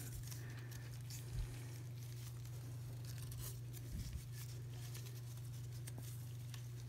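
Faint rustling and handling noises as gloved hands twist a pump-nozzle unit fuel injector in a bare diesel cylinder head to work it loose, with soft knocks about a second and a half in and again about four seconds in. A steady low hum runs underneath.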